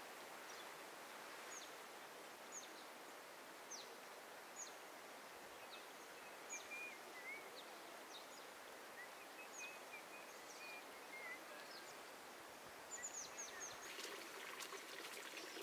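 Faint outdoor ambience: small birds calling with short, high chirps about once a second over a steady soft hiss, joined by a faint crackling near the end.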